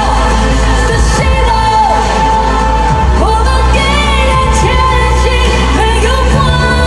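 Pop ballad sung live: a solo voice holds long notes with vibrato over steady band accompaniment and bass.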